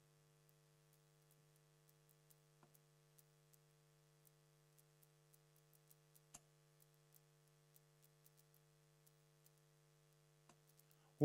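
Near silence over a faint steady electrical hum, broken by three faint knocks about four seconds apart, the middle one the loudest: steel-tipped darts striking a sisal bristle dartboard.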